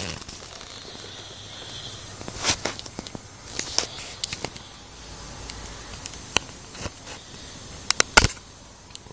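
A sleeping man's breath hissing out, then quieter breathing, with scattered sharp clicks and a louder knock near the end.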